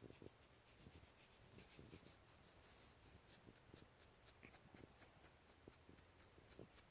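Faint, quick scratching and ticking against a hard surface, several small scrapes a second, getting busier in the second half.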